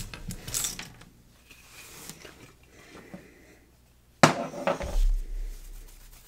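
Small plastic Lego pieces being handled and clicked, with a sharp click about four seconds in followed by a brief clatter of pieces.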